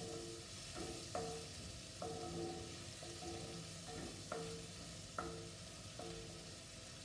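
Food sizzling gently in a pan over a low flame while a spatula stirs it, its strokes knocking and scraping against the pan about once a second with short ringing tones.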